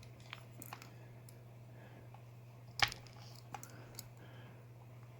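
Faint small metallic clicks and ticks of a clip-remover tool working at the retaining clip on a padlock's core, with one sharper click about three seconds in. A steady low hum runs underneath.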